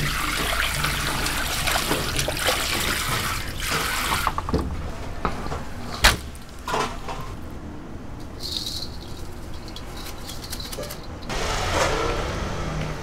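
Water from a sink sprayer runs onto cut pork in a plastic basket in a stainless steel sink, then stops after about four seconds. About six seconds in comes one sharp knock, the loudest sound, as the basket of pork is tipped into a steel mixing bowl; smaller handling sounds and a short stretch of noise follow near the end.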